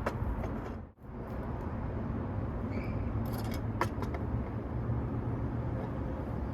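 Vintage Dunlap 13-inch bench-top jigsaw running steadily. It drops out briefly about a second in, and a couple of sharp clicks come over it.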